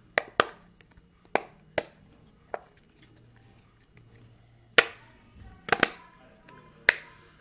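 Silicone pop-it fidget toy being pressed, its bubbles giving about nine sharp pops at irregular intervals, two in quick succession near the six-second mark.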